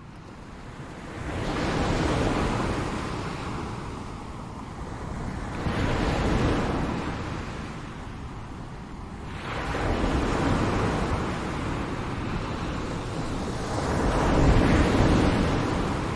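Ocean surf: waves breaking and washing up the shore in four slow surges, each swelling and then fading, the last one the loudest.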